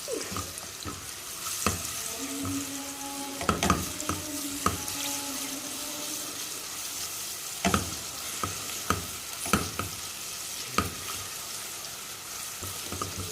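Garlic frying in hot oil, sizzling steadily, while it is stirred in the pan with a spoon that knocks against the pan several times at irregular intervals.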